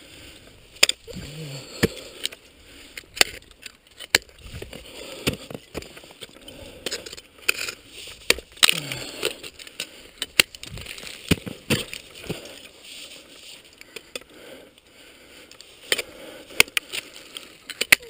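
Ice axe picks and crampon points striking and biting into waterfall ice, sharp knocks about once a second at an uneven pace with a short lull near the end, and ice crunching and scraping in between.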